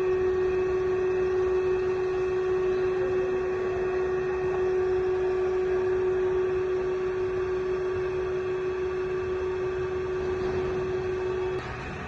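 Amada H600 heavy-duty band saw running during a cut, a steady machine hum with one strong constant tone. Near the end the tone cuts off suddenly and the sound drops to a quieter steady machine noise.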